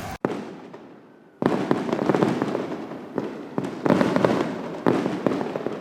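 Fireworks going off: one sharp bang near the start fading away, then dense crackling and popping in several loud surges.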